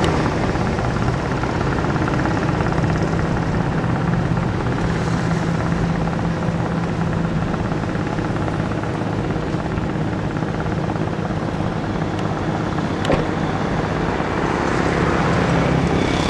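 A vehicle engine running steadily with a constant low hum and noise, and a single sharp click about thirteen seconds in.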